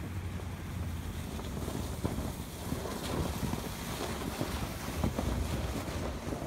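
1998 Chevy Silverado pickup backing slowly through packed snow and ice: the engine runs low under a crunch and crackle of its studded snow tires, growing louder as the truck passes close by partway through. Wind buffets the microphone.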